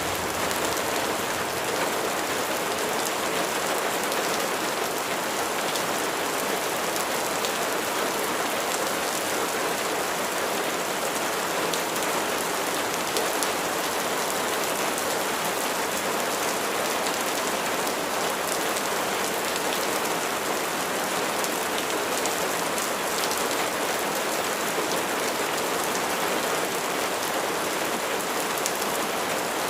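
Steady rain falling: an even hiss with scattered drop ticks, unchanging in strength.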